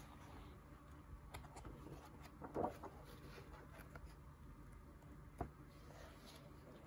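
Glossy pages of an oversized Absolute Planetary hardcover being turned by hand: faint paper rustles and handling sounds, with a louder rustle about two and a half seconds in and a sharp tick about five and a half seconds in.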